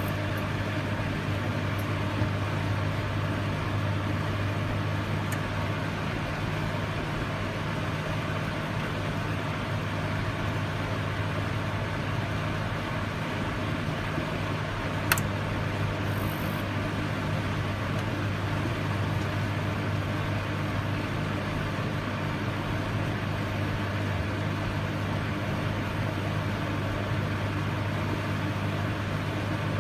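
Microwave oven running: a steady low electrical hum with fan noise, and a single short click about halfway through.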